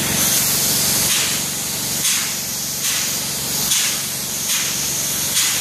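Spray gun hissing as it sprays roof coating as a texture coat, the hiss swelling in regular surges a little under once a second, over a steady low hum.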